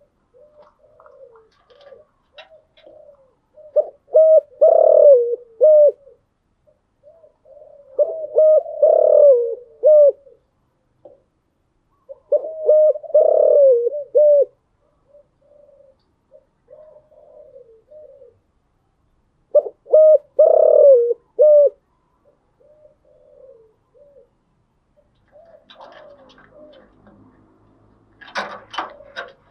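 Spotted dove cooing: four loud phrases of about two seconds each, with softer coos between them. A short scratchy rustle comes near the end.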